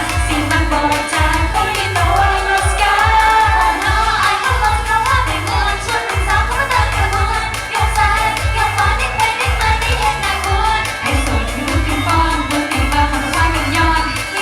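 Thai idol pop song with female singing over a steady bass beat, played loud.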